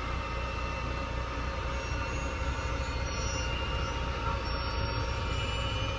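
Steady engine noise on an airport ramp: a low rumble with several steady whining tones above it, unbroken throughout.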